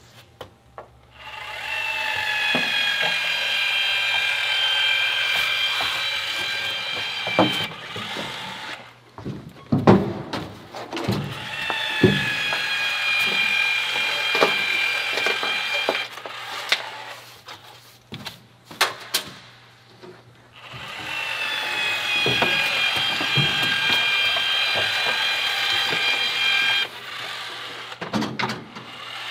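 Cordless adhesive gun's motor whining in three long runs of about five to six seconds each, its pitch sagging slightly under load as it pushes construction adhesive out of a tube. Sharp clicks and knocks fall in the pauses between runs.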